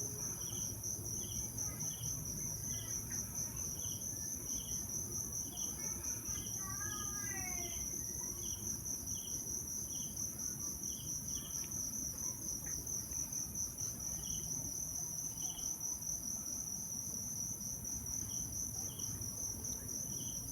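Insects chirring steadily, a continuous high pulsing trill, with a separate short chirp repeating about once or twice a second. About seven seconds in comes a faint drawn-out call that slides down in pitch.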